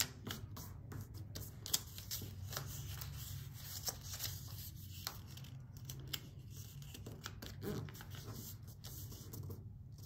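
Origami paper being folded and creased by hand: short crinkles, rustles and light taps on the table, with one sharper snap of the paper under two seconds in, over a steady low hum.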